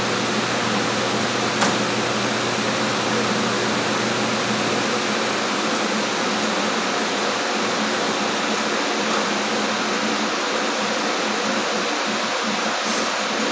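Commercial kitchen exhaust hood fan running with a steady rushing drone and a low hum. A single sharp click comes about a second and a half in.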